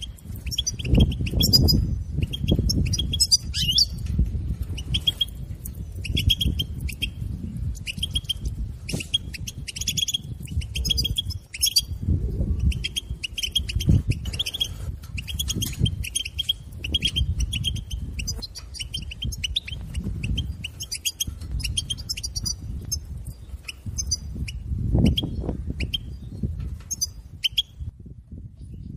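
European goldfinch giving rapid runs of short, sharp twittering calls, the 'bitbita' chatter, in quick bursts that break off near the end. A low rumble runs underneath.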